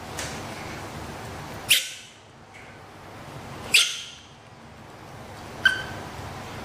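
Baby macaque giving three short, shrill squeals about two seconds apart, the last one shorter and more whistle-like, while its face is wiped with a tissue.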